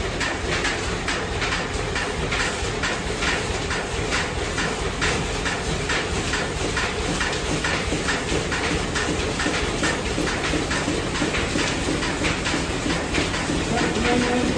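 Small vertical three-cylinder steam engine running: a quick, even beat of its strokes over a steady hiss of leaking steam. A low steady tone comes in near the end.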